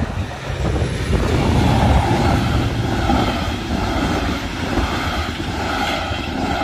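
Diesel-hauled Metronom double-deck passenger train passing over a level crossing: the loud rumble and clatter of its wheels on the rails. The sound swells within the first second and pulses about once a second as the wheelsets pass.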